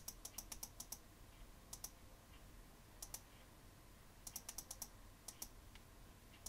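Faint clicks of a computer mouse and keyboard, in short clusters of several quick clicks, the biggest near the start and again about four to five seconds in, as values are entered into a program's settings boxes.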